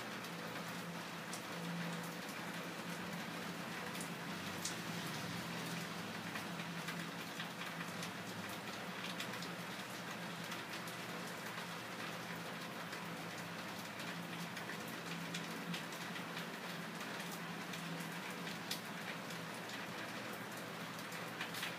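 Steady background hiss with faint scattered ticks, like rain pattering, over a low steady hum.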